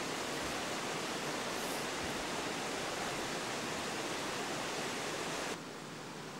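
Steady, even rushing noise with no distinct events, dropping noticeably quieter about five and a half seconds in.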